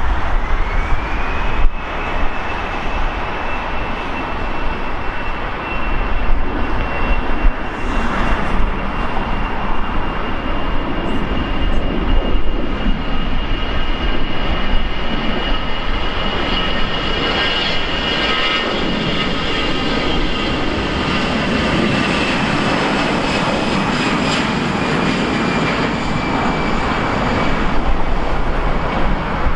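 Jet airliner's engines going by, a steady roar with a high whine that rises at the start and holds. Several whining tones stack up and are loudest around the middle, then ease toward the end.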